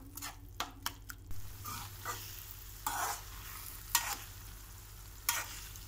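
A spoon stirring a thick green chilli pickle paste in a pan on low heat: irregular clacks and scrapes against the pan, about ten in all, over a faint sizzle of oil.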